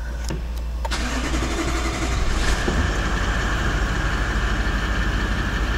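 Toyota 1VD-FTV 4.5-litre twin-turbo V8 diesel being started for the first time after its injectors were replaced and the fuel system was bled. The starter cranks from about a second in, the engine catches about two and a half seconds in, and it runs on at a steady, evenly pulsing idle with a high whine above it.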